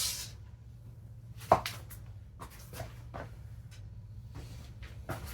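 Scattered clicks and knocks from hands working on a washing machine's front panel, with one sharp knock about a second and a half in.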